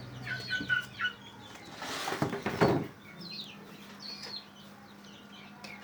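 Newly hatched ayam kampung super chicks peeping in short high chirps, in two flurries, with a burst of rustling about two seconds in.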